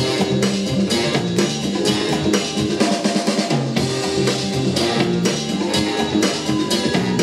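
Hip-hop break music with a steady drum beat and a bass line.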